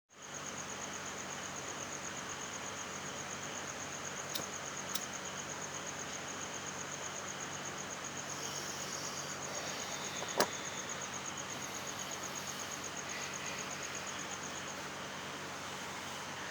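Cricket chirping in a high, evenly pulsing trill over a constant hiss, stopping about fifteen seconds in. A few sharp clicks, the loudest about ten seconds in.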